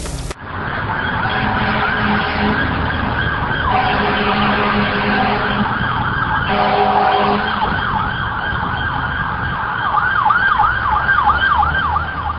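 Emergency vehicle siren wailing, its pitch sweeping up and down, switching to a fast yelp near the end, over a low rumble.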